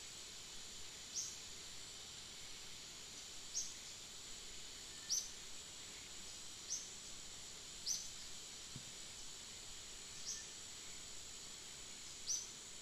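Outdoor wildlife ambience: a steady high insect hum, with a bird giving short, high, downward-sliding chirps about seven times, one to two seconds apart.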